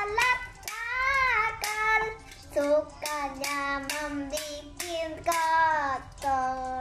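A young girl singing a children's song, holding long notes, while keeping time with steady sharp taps of improvised hand-held percussion, about two or three a second.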